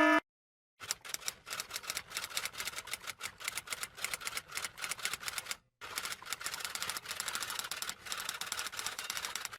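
Typing sound effect: a fast, irregular run of key clicks that starts just under a second in, with a short break a little past halfway.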